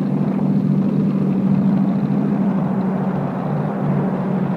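Propeller airplane engine running with a steady drone, heard from inside the cabin.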